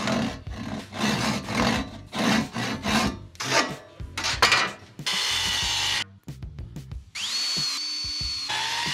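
Crosscut panel saw resawing a small board by hand, with rasping push strokes about two a second for the first half. After a few short knocks, a steady hiss with a whine that rises and then holds comes in near the end.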